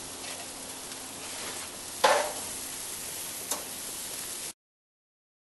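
Chicken sizzling on a gas grill, a steady hiss, with a sharp metallic clank about two seconds in and a lighter click a second and a half later. The sound cuts off near the end.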